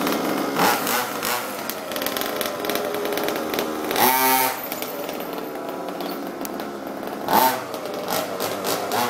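Ported Zenoah 26 cc two-stroke engine of an FG Baja 2WD RC car running, with quick throttle blips that sweep the pitch up and down. One blip comes just under a second in, one about four seconds in (the loudest), and one a little past seven seconds.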